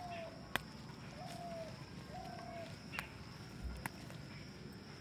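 Amaranth (chaulai) stems snapping as leafy tops are plucked by hand: a few sharp snaps, the loudest about half a second in. Behind it a bird calls three times in short falling notes over a faint steady high drone.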